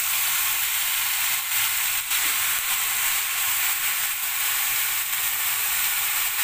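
Raw chicken pieces sizzling in hot oil in a stainless steel pot, a steady hiss with a faint click or two. The chicken has just gone in on top of sautéed ginger, the searing stage of cooking chicken tinola.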